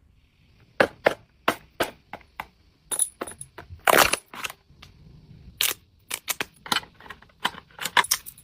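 Hard objects being handled: about twenty sharp, irregular clicks and knocks, with a short scraping rustle about four seconds in.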